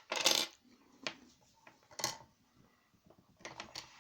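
Metal clicks and clinks of tools working on an Abloy Protec II lock cylinder as it is taken apart. A short scraping rasp comes just after the start, followed by a few scattered sharp clicks.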